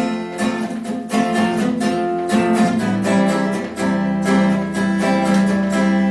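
Acoustic guitar strummed in a steady rhythm, its chords ringing between the strokes, with no singing.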